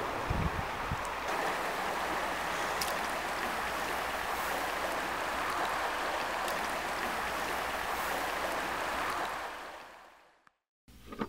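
Steady rush of flowing river water, with a few low wind rumbles on the microphone in the first second; the water sound fades out about ten seconds in.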